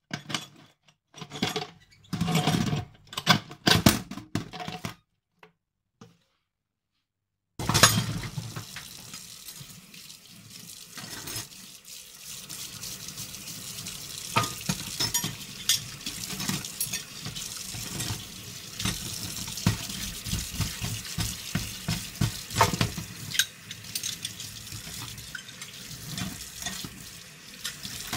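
Steel auger bits clinking and scraping against a stainless steel sink for the first few seconds. After a short gap, a tap runs into the sink while the rusty bits are scrubbed and rinsed, with frequent small knocks of metal on steel.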